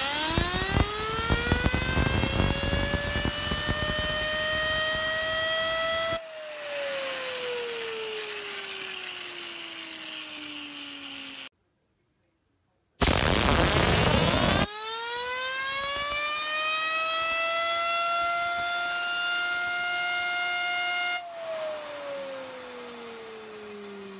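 A Z07 fidget spinner with a hybrid 608 bearing is blasted with compressed air from an air nozzle, giving a loud hiss and a whine that rises in pitch as it spins up. About six seconds in the air cuts off, and the whine falls steadily as the spinner coasts down. After a short break the same happens again: hiss and rising whine, then the air stops near the end and the whine falls away.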